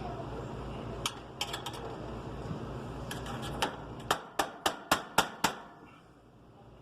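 Sharp clicks or taps: a few scattered ones, then a quick run of about six at roughly four a second, over a low steady hum that dies away near the end.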